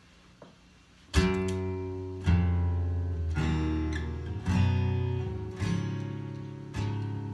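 Acoustic guitar strumming chords, starting about a second in: one chord struck a little more often than once a second, each left to ring out and die away before the next, as a song intro.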